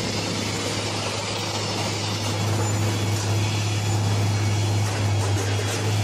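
Engine of a railway track-laying machine running with a steady low hum, getting a little louder about two seconds in.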